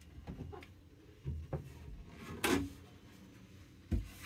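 Knocks and clicks of teak cabinet and locker doors being handled and opened, a few light taps, then a louder knock about halfway through and a sharp thump near the end as a louvered locker door swings open.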